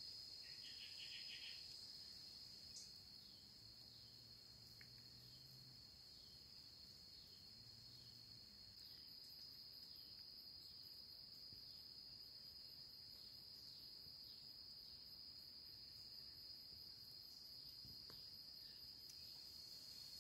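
Insects droning steadily in a continuous high-pitched whine, with a second, higher insect pulsing rapidly from about nine seconds in.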